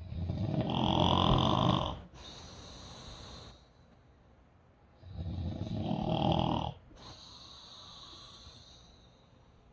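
A sleeping person snoring: two long snores of about two seconds each, about five seconds apart, each followed by a quieter breath out.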